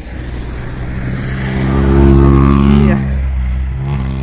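Rally car engine passing close by under power. It grows louder to a peak about two seconds in, then drops off just before three seconds.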